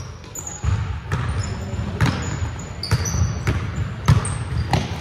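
Basketball bouncing on a hardwood gym floor as players dribble, about half a dozen irregularly spaced bounces, with short high-pitched sneaker squeaks on the court in between.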